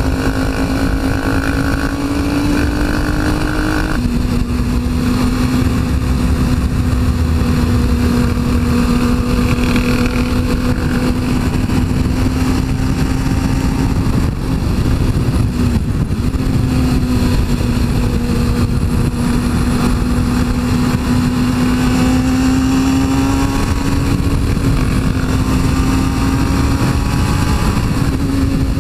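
2002 Suzuki GSX-R 600's inline-four engine running under way with wind rumble on the microphone. The revs climb for the first four seconds, drop sharply with an upshift, then hold fairly steady while cruising.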